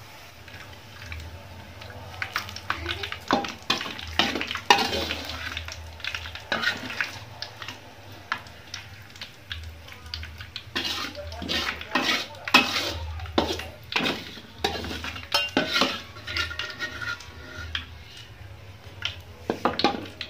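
A metal ladle and spatula scraping and knocking against an aluminium wok and a wire-mesh strainer as fried shallots are stirred and scooped out of the oil. The strokes come irregularly, busiest in the middle of the stretch, over a faint sizzle of frying oil.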